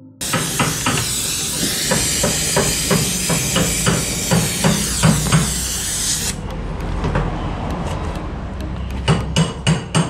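Refrigerator compressor running under test. Gas hisses loudly out of an open pipe and cuts off sharply about six seconds in, over a steady low hum and regular knocking about three times a second.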